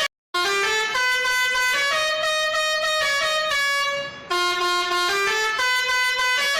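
Old-style Indonesian 'telolet' multi-tone bus horn playing a melody in quick stepped notes, sometimes two tones at once. It cuts out briefly just after the start and dips for a moment about four seconds in.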